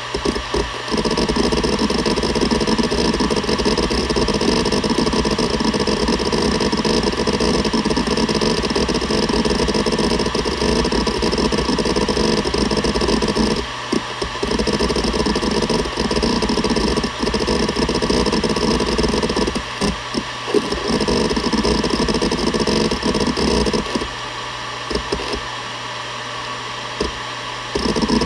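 Seagate Barracuda ES.2 ST31000340NS 1 TB hard drive running with near-continuous rapid head seeking, a dense mechanical chatter over the spindle hum. The seeking breaks off briefly a few times, and for a few seconds near the end only the quieter spinning drive is heard.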